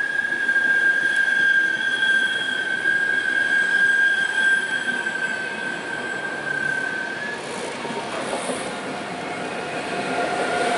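Passenger coaches rolling past with a steady high-pitched wheel squeal over the rumble of the wheels; the squeal stops about seven seconds in. Near the end the electric locomotive passes, bringing a louder rush of rolling noise with a lower hum.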